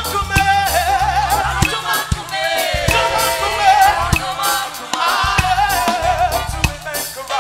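Live gospel praise music: a group of singers on microphones singing in harmony with wavering, held notes over a band's bass and steady drum beat.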